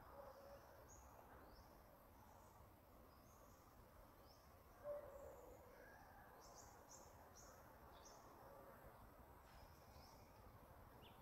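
Near silence: faint outdoor background hiss with about a dozen short, high-pitched chirps scattered through, some sweeping up or down in pitch.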